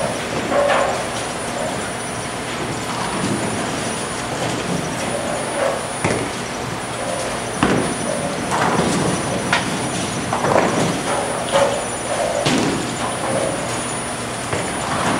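Bowling alley ambience: a steady rumble of balls rolling on the lanes and through the ball returns, with pins crashing several times along the lanes.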